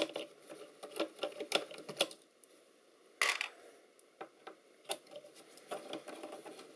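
Screwdriver working the screws out of a fibreglass-epoxy cover plate on a metal-and-board chassis: a run of irregular clicks and taps, with a louder clatter about three seconds in.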